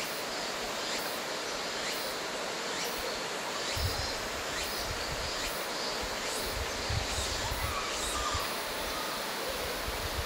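Steady rush of flowing river water, with wind buffeting the microphone from about four seconds in.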